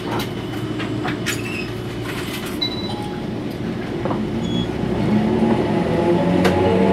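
Steady running rumble heard inside a Toyohashi Railway 3500-series tram in motion, with scattered sharp clicks and knocks from the wheels and car body; it grows a little louder in the second half.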